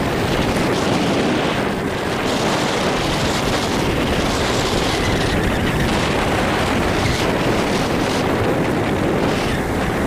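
Steady rush of wind on the microphone with road noise from an electric bike ridden fast, at about 28 mph.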